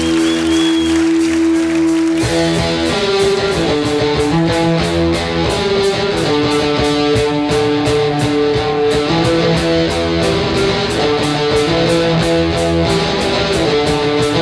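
Live rock band with electric guitars: a held guitar chord rings for about two seconds, then the drums and full band come in with a steady beat under a repeating guitar line.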